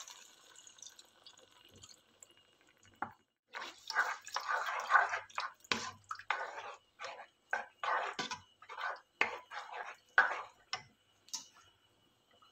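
Cream poured into a pan of sauce, then a silicone spoon stirring the thick cream sauce in a non-stick pan: irregular wet slopping and dripping sounds.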